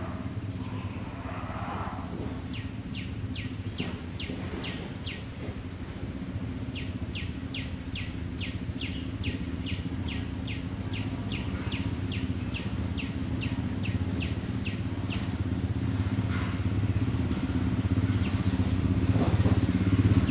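A vehicle engine idling with a steady low hum that grows a little louder near the end. Over it a bird calls in two long runs of short, falling chirps, about three a second.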